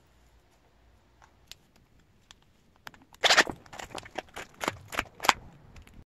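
Clear plastic binder sleeves crinkling as photocards are slid into their pockets and the plastic pages handled: a few faint ticks, then from about three seconds in a quick run of loud crinkling strokes.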